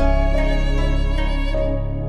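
Background music: a violin melody over a held bass, its notes changing every half second or so.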